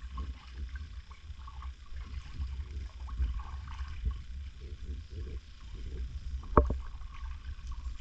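Kayak paddling on calm water: soft splashes and drips from the paddle blades over a low, steady rumble on the microphone, with one sharp knock about six and a half seconds in.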